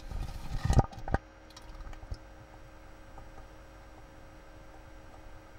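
Underwater sound picked up through a homemade camera housing: muffled sloshing with two sharp knocks about a second in, then a faint steady hiss.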